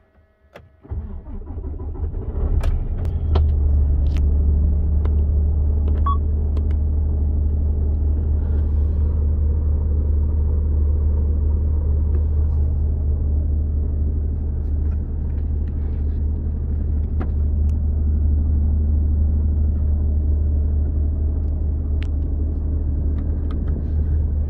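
Mercedes-Benz Actros MP4 18.48's 12.8-litre inline-six diesel (OM471) starting about a second in, then settling into a steady deep idle, heard from inside the cab, with a few light clicks over it.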